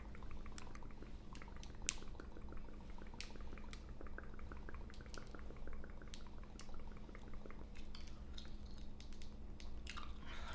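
Gum chewing and smacking close to the microphone: a string of wet clicks and pops at uneven spacing, with a run of rapid small ticks in the first few seconds.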